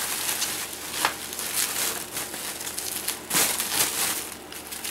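Plastic bubble wrap being handled and unwrapped, crinkling and rustling with irregular sharp crackles.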